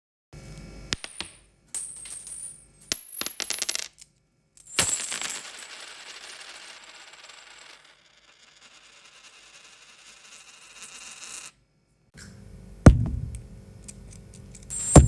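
A series of separate coin-drop sound effects: coins hitting a hard surface with sharp clinks and high metallic ringing. About five seconds in, one long clatter dies away over several seconds, and heavier drops with a low thud come near the end, the loudest about 13 seconds in.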